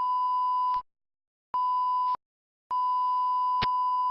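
Electronic bleep tone, a single steady pitch, sounding three times: a beep of under a second, a shorter one, then a long one that keeps going, with a short click partway through it.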